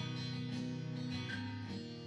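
Acoustic guitar strumming chords, which ring on steadily between light strokes.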